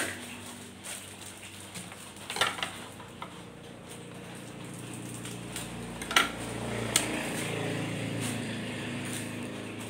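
Handling noises from a cardboard box being worked open, with a few sharp knocks and clicks as objects are set down on a wooden table, over a steady low hum.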